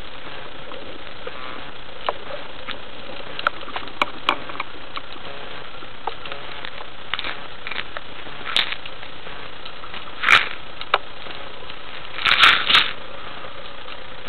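Underwater sound through a waterproof camera housing: a steady hiss with scattered sharp clicks and crackles, and several louder crackling bursts in the second half, the loudest near the end.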